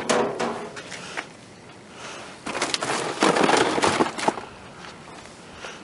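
Crackling and crunching of dumpster contents being handled and shifted about, in two bursts, the second louder, with a few sharp clicks.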